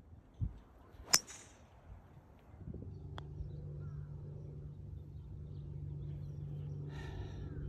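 A golf club strikes a ball with a sharp crack about a second in. A putter taps a ball with a lighter click about three seconds in, over a steady low machine hum that sets in shortly before.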